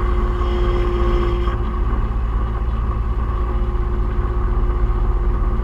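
New Holland TR70 combine running, heard from inside the cab: a steady engine drone, with a higher whine over it that stops about a second and a half in.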